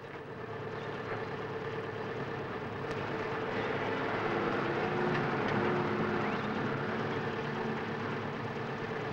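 Motor-vehicle engine noise, a steady running sound that slowly grows louder over the first half and eases a little near the end.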